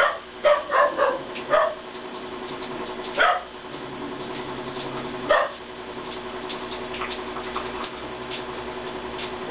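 A dog off-picture barking in short yips, a quick cluster in the first two seconds and then two more, the last about five seconds in.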